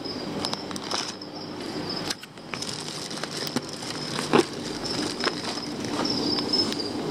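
Plastic shipping bags and box liner crinkling and crackling as water-filled livestock bags are handled and lifted out of the box, with a steady high-pitched trill in the background.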